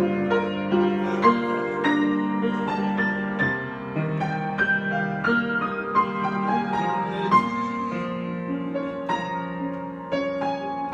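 Solo piano playing an improvisation: a steady flow of overlapping notes and chords, each left ringing as the next is struck.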